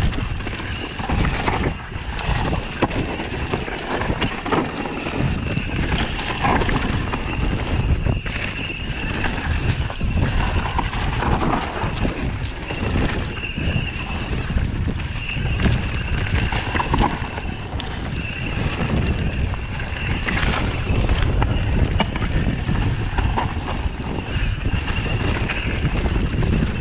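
Mountain bike riding fast down a dirt singletrack: wind buffeting the microphone over tyre rumble and the clatter of the bike over roots and stones, with a high buzz that keeps coming and going.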